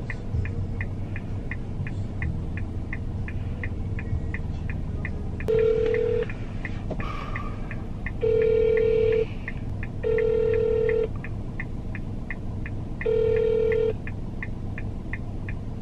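Unanswered phone call heard through a mobile phone: four short ringback tones of under a second each, over a steady fast ticking of about three ticks a second and a low hum that fades a third of the way in.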